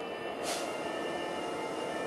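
GBRf Class 66 diesel-electric locomotive, with its two-stroke V12 engine, running as it hauls a train slowly over pointwork, mixed with wheel-on-rail noise. There is a short burst of hiss about half a second in.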